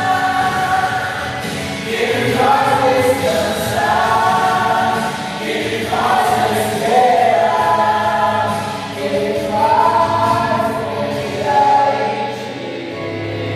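A choir singing a gospel hymn in long, held phrases, with the notes changing every second or two.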